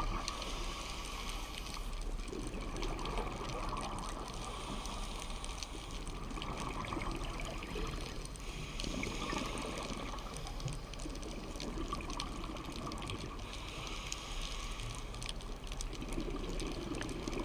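Steady, muffled water noise heard underwater through a dive camera's housing while swimming over the seabed.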